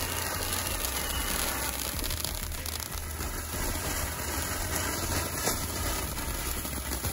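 Handheld fountain firework ('sword' tube) spraying sparks with a steady hiss.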